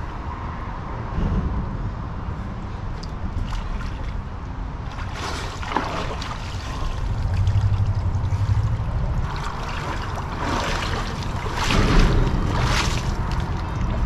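Water splashing and sloshing around a person wading and rinsing off in a river, in a few surges midway and again near the end. Underneath runs a steady low rumble of wind on the microphone.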